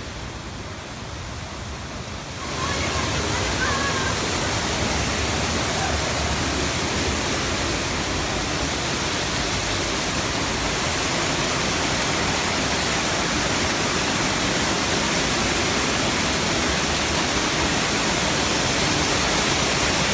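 Falling water of a large waterfall, rushing steadily. It gets suddenly louder about two and a half seconds in, as the falling water comes close.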